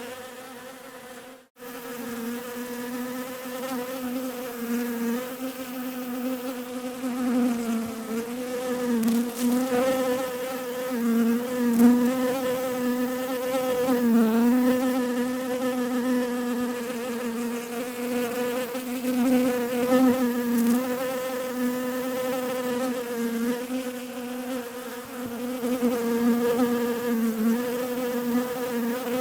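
Bees buzzing: a steady hum that wavers slightly in pitch, briefly cutting out about a second and a half in.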